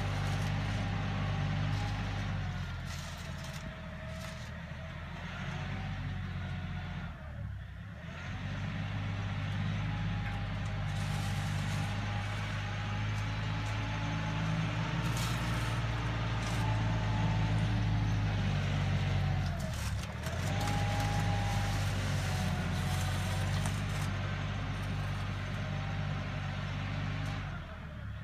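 Kioti NX-series compact tractor's diesel engine running under load while spreading gravel with a box scraper, with a higher whine riding above it. The engine note dips briefly twice, about a third of the way in and again about two-thirds in, then picks back up.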